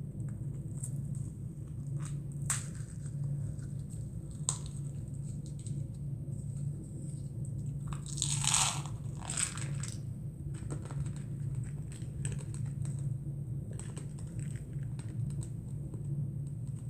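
Nerds candy being eaten from its small cardboard box: scattered light clicks as the box is handled, a louder rushing rattle about halfway through as the candy is tipped into the mouth, then crunching. A steady low hum runs underneath.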